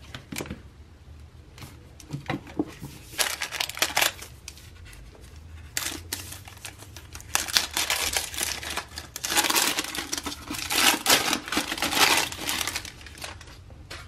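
Protective wrapping being peeled off a Dyson Airwrap handle and crumpled, crinkling and tearing in uneven spells that are heaviest in the second half.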